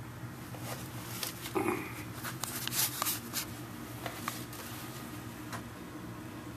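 Scattered light clicks and rustling of handling, from about a second in to about halfway through, over a steady low hum.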